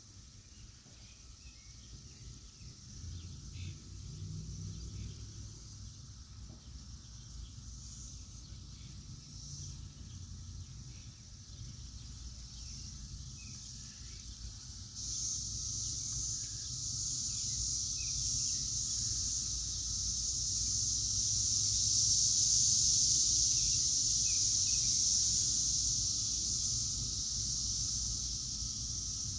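Chorus of cicadas droning in a steady high-pitched buzz; about halfway through it suddenly swells louder, peaks a few seconds later and eases slightly, over a low rumble.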